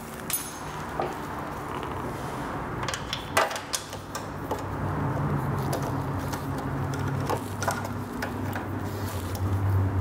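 A crinkly foil protective bag over a scooter's front fender rustling as it is handled, with a few light clicks and knocks of parts being moved, over a steady low hum.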